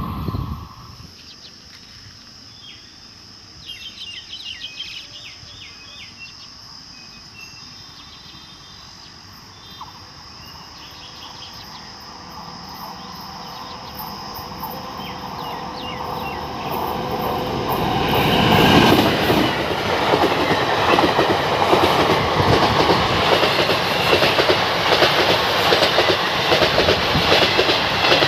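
An electric-locomotive-hauled Indian Railways express approaches, its sound building slowly. About two-thirds of the way through it passes close: the wheels of its ICF coaches clatter rapidly and loudly over the rail joints.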